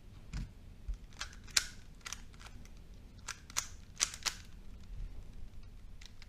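A 3x3 Rubik's cube being turned one-handed: irregular, sharp plastic clicks as its layers snap round, about a dozen in a few seconds.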